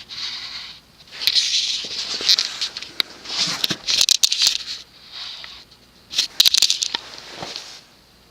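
Irregular rustling and scraping in uneven bursts, with scattered light clicks, stopping shortly before the end.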